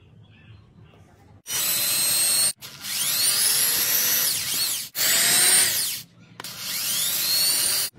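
A small electric drill with a twist bit drills holes into a hard plastic lamp housing along a glued crack. It runs in four bursts of one to two seconds each, and its whine rises as the motor spins up at the start of each burst.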